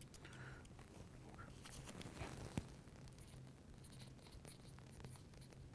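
Faint scratching of a pen writing on a small paper medication label, with one sharp click about two and a half seconds in, over a low steady hum.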